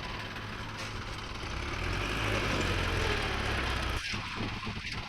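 Diesel engine of an earthmoving machine running steadily, swelling in the middle, then dropping and turning uneven about four seconds in.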